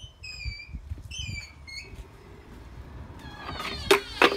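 Steel swing gate squealing and creaking as it is pushed open by hand, its automatic opener arm disengaged for manual operation, with two loud squeaks near the end. Birds chirp a few times in the first two seconds.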